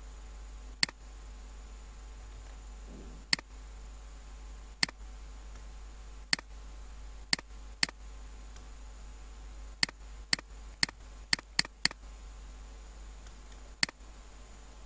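Computer mouse button clicking about a dozen times at irregular intervals, with a quicker run of five or six clicks a little past the middle, over a steady low electrical hum.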